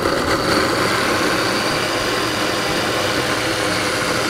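KitchenAid blender running steadily at speed, chopping and blending sliced strawberries into milk, cream, sugar and vanilla for an ice cream base.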